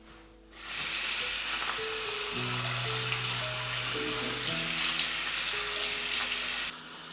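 Bathroom sink tap running steadily, water splashing onto hands and into the basin during face washing. It starts about half a second in and stops suddenly near the end. Soft background music with long held notes plays underneath.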